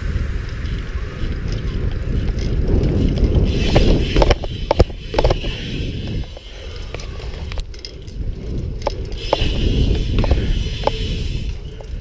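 BMX bike ridden over asphalt: a steady rumble of tyres and wind on a bike-mounted camera, with scattered sharp clicks and knocks from the bike, several in quick succession about four seconds in and more through the second half.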